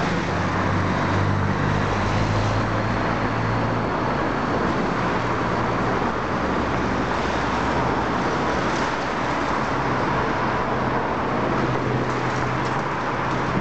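Demolition excavator's diesel engine and hydraulics running steadily with a low drone that strengthens and eases as the crusher jaw works, over a wash of street traffic.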